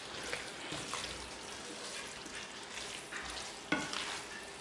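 Radiatori pasta and sausage pieces in a creamy tomato sauce sizzling gently in a frying pan while being stirred and turned with a spatula, with soft scraping and clicks and one sharp tap near the end.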